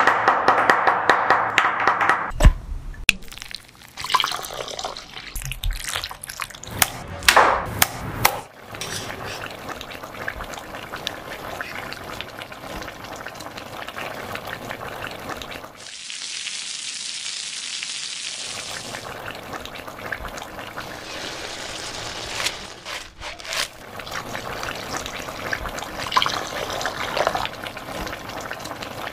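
Kitchen cooking sounds in several short cuts: knives knocking on a plastic cutting board through shrimp paste, then a steady bubbling of water as shrimp balls poach, with a brief high hiss about two-thirds of the way through.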